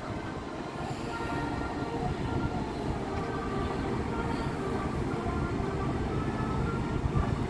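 Steady low rumble of the Regal Princess cruise ship's engines and thrusters as it manoeuvres away from the quay, with a few faint steady whining tones above it. The rumble grows slightly louder.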